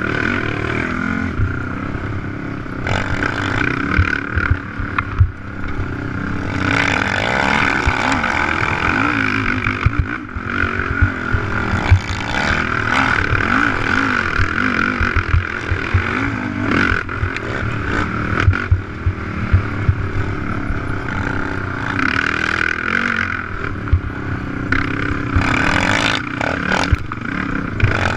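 Honda TRX450R race quad's single-cylinder four-stroke engine revving up and down hard under race throttle, with frequent knocks and rattles from the machine crossing rough ground.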